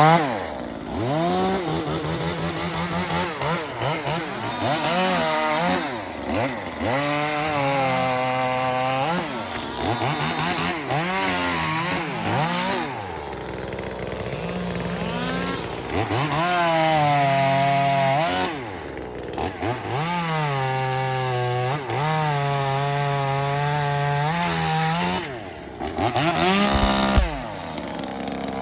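Chinese clone of an Echo 2511T top-handle two-stroke chainsaw, with no carb restrictions and no baffling in its exhaust, being revved repeatedly. Its pitch climbs and falls again and again, is held at full throttle for several seconds at a time, and drops back low between runs.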